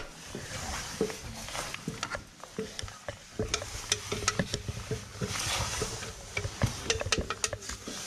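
Irregular clicks and knocks over a rustling, scuffing noise, busiest in the second half.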